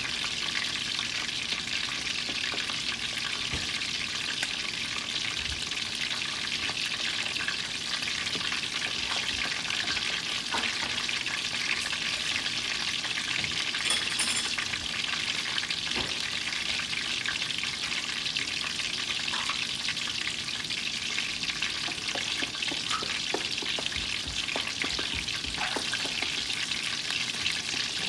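Flour-coated chicken drumsticks frying in hot oil in a stainless steel pan: a steady sizzle with small crackles and pops.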